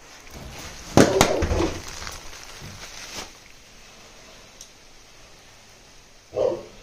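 A sudden loud crackling clatter about a second in, then a single short dog bark near the end.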